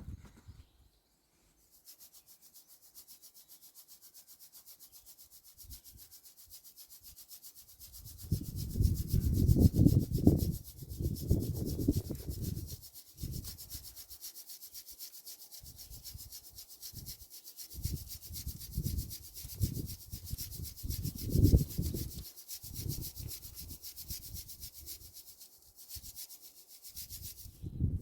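Crushed ore being rubbed and scraped through a kitchen strainer by hand, in irregular strokes that are heaviest in the middle, over a steady faint hiss.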